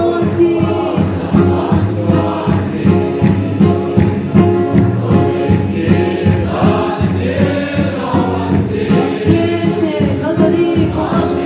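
Congregation singing a hymn together in chorus, with a steady drum beat from a large barrel drum.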